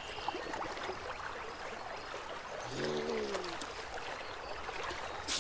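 Water trickling and lapping softly as a beaver works mud and weed onto its dam in the pond. About three seconds in comes a short falling pitched call, and a sharp click or splash just before the end.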